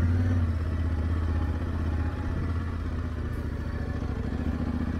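Yamaha Ténéré 700's parallel-twin engine running at a steady low speed, its level easing slightly over the first couple of seconds.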